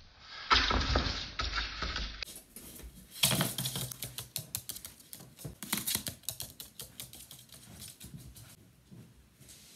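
A loud rustling scuffle for a couple of seconds. Then a long flurry of sharp taps and clicks as a magpie scrambles across the wooden floor, its claws skittering on the boards.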